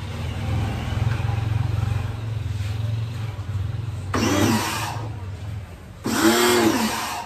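Kawasaki ACK 302 pressure washer firing twice, about four and about six seconds in. Each burst is under a second of spray hiss, with the motor's pitch rising as it starts and falling as it stops. A steady low hum runs under it.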